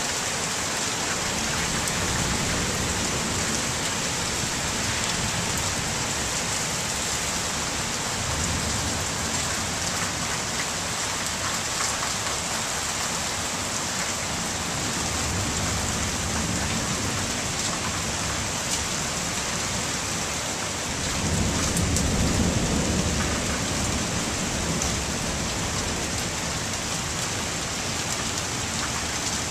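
Heavy rain falling with a steady hiss. Low rolls of thunder come and go, and the loudest rumble is about three-quarters of the way in.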